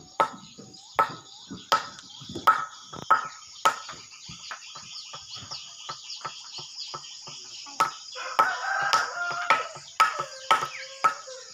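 Swiftlet chatter: a steady high twittering, cut by sharp short chirps about once a second. A rooster crows about eight seconds in.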